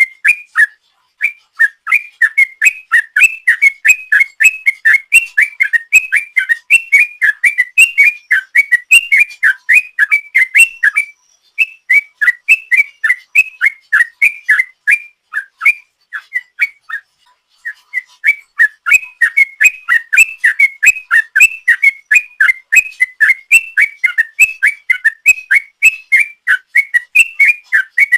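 Yellow-vented bulbul (trucukan) singing a long rapid song of bubbling whistled notes, about four a second, with a short break partway through and a longer pause about two-thirds of the way in.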